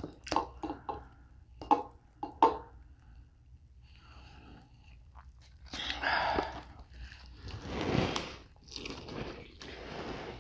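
Cooked lobster tail shell cracking and crunching as it is pulled apart by hand, with several sharp cracks in the first few seconds. Near the end comes the sound of biting and chewing the meat.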